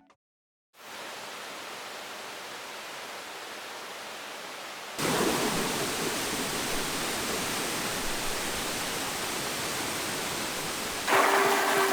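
Rushing water of a mountain stream and waterfall: a steady hiss that begins just after the start and gets louder about five seconds in and again near the end.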